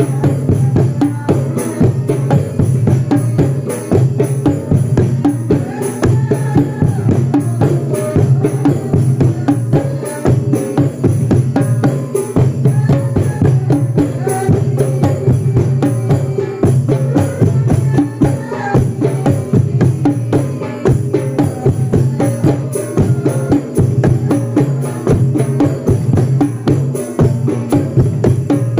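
Percussion music: drums struck in a fast, continuous beat that does not pause.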